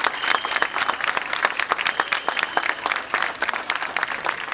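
A large crowd clapping hands: dense, irregular sharp claps.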